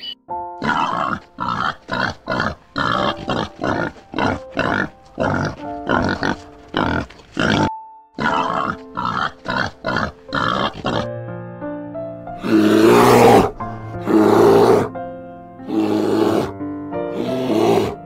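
An animal grunting in a fast run of short calls, about two to three a second with a brief break about eight seconds in, then giving four longer, louder calls of about a second each, over background music.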